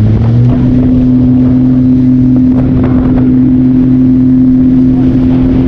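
Jet ski engine running under power, its pitch rising a little just after the start and then holding steady.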